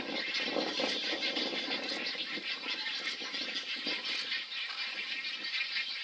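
Nesting colony of egrets and anhingas: a dense, continuous din of rattling, clicking calls from many birds. A lower, harsher calling stands out over it for the first two seconds or so, then fades.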